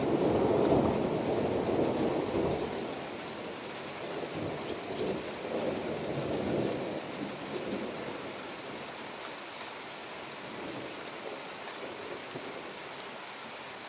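Thunder rumbling, loud at first and dying away over the first few seconds, with a weaker second swell a little later, over steady rain. A few short high sparrow chirps come through the rain.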